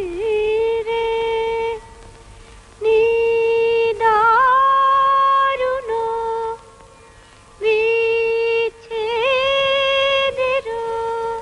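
A woman singing a slow song unaccompanied or nearly so, long held notes with vibrato, in phrases broken by short pauses.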